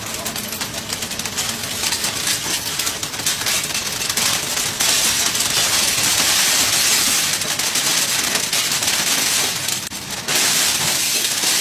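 A stack of sheet glass cracking and splintering as it sags and collapses, a dense, continuous crackling of countless small breaks that eases briefly about ten seconds in and then picks up again.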